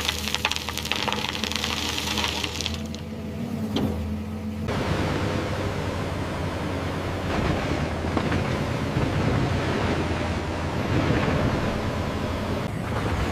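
Heavy earthmoving machine's diesel engine running under load, with crackling and crunching of rock. The sound changes abruptly about five seconds in to a denser, noisier rumble.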